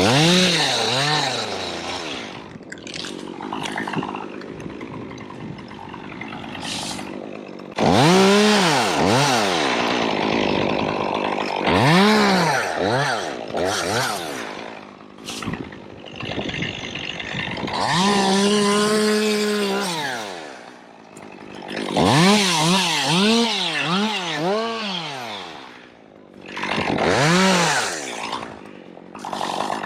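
Two-stroke chainsaw revving up and falling back to idle again and again, with a longer steady high-revving run partway through, as when cutting wood; quieter idling between the bursts.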